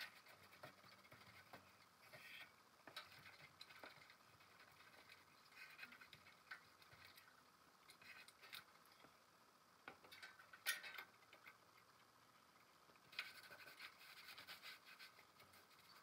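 Faint rubbing and scratching of a cloth rag wiping down the painted metal deck of a jukebox record changer, with scattered small clicks and taps and one sharper tap about ten seconds in.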